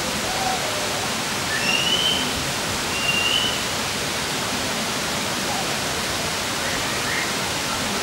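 Steady rushing of a waterfall, with two short high chirps about two and three seconds in.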